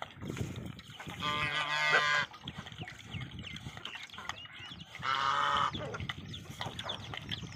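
A farm animal calls loudly twice, a drawn-out call of about a second each time, one about a second in and one about five seconds in. Between the calls a horse laps water from a metal basin, faint and wet.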